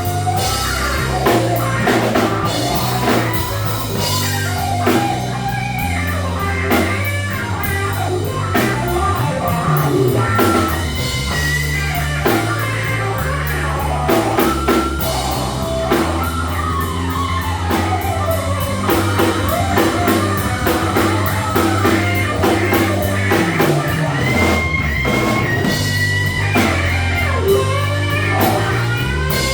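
Live electric blues band playing: lead electric guitar with bending notes over bass and drum kit.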